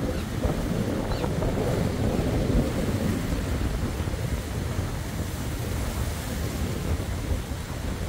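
Stormy surf breaking and washing toward the claystone rock platform, a continuous rolling wash of waves, with strong wind buffeting the microphone.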